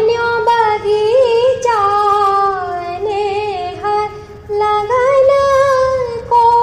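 Background music: a high woman's voice singing a Hindi devotional song with long held, gliding notes.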